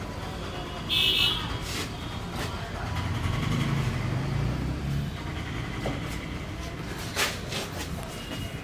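Street traffic: a passing vehicle's low rumble swells in the middle, with a brief loud high-pitched sound about a second in and a sharp click about seven seconds in.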